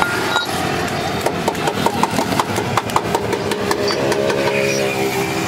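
A motor vehicle's engine idling steadily, with a run of light metallic clicks and taps from about a second in to past the middle as the brake shoes are worked against the drum-brake backing plate.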